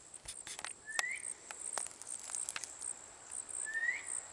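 Insects chirring in a steady, high, pulsing drone. A short rising call sounds twice, about a second in and near the end, and a few sharp clicks come in the first half.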